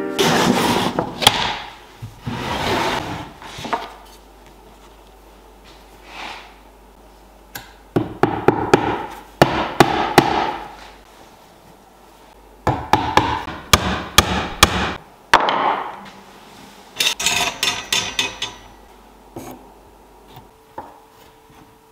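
Hammer driving small nails into a thick wooden board on a workbench. It comes as several runs of quick, sharp taps with pauses in between.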